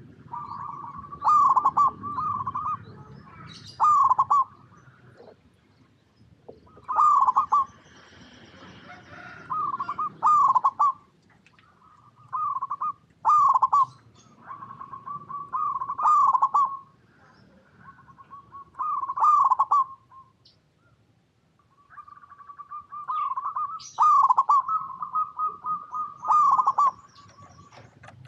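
A local zebra dove (perkutut) in full song, the kind of call used to lure other perkutut into singing. It repeats cooing phrases every couple of seconds: a held note broken by quick stuttering accented notes, with a short pause about two-thirds of the way through before a longer run.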